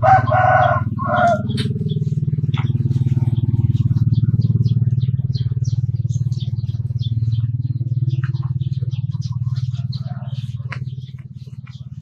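A rooster crows once at the start, the loudest sound, over a steady low engine-like hum that fades near the end. Scattered small crunching clicks come from water buffaloes chewing cut grass and stalks.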